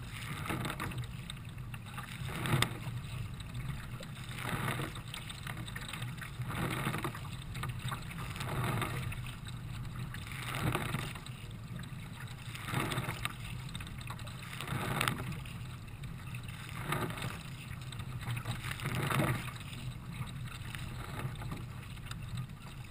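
Kayak paddle strokes splashing through choppy water, a wash of spray about every two seconds, over a steady low rumble of water against the hull.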